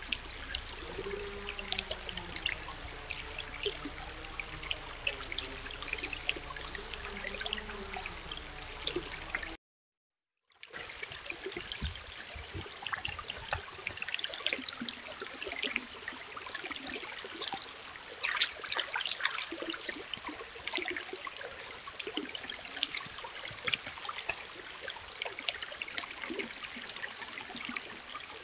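Shallow stream trickling and babbling over rocks, with a faint low wavering hum under it during the first part. The sound cuts out completely for about a second near the middle, then the water resumes.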